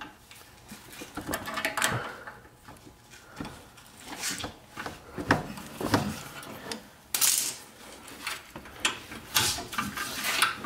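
Slip-joint pliers clicking and scraping against a steel brake hard line and its bracket as the line is bent by hand. The clinks and rubs come irregularly, with a sharper scrape about seven seconds in.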